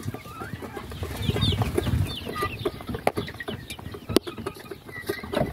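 A flock of young pullets clucking and peeping in short, overlapping calls, with a sharp knock about four seconds in.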